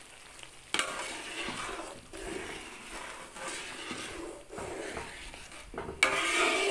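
Metal ladle stirring and scraping through simmering chilli gravy in a large wok as evaporated milk is mixed in, starting about a second in and getting louder near the end.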